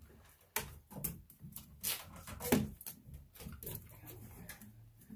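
Irregular clunks, knocks and scrapes of a sump pump and its PVC discharge pipe being handled and set down into a water-filled sump pit.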